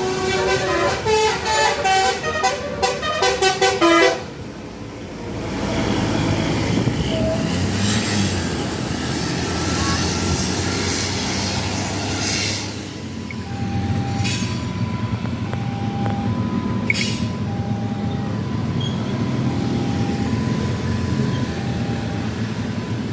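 Tour bus's multi-tone 'telolet basuri' horn playing a quick tune of short notes for about four seconds, then cutting off sharply. A bus engine and road noise follow, with a repeating two-note electronic beep starting about halfway through.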